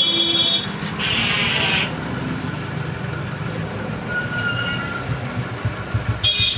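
Street traffic: a motor vehicle engine running close by, with a short high horn blast at the start and a hissing burst about a second in. Near the end the engine chugs in quick, even pulses and a second horn sounds.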